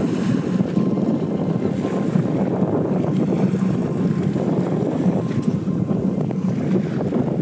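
Steady low rumbling noise of a boat under way on open water, with wind buffeting the microphone.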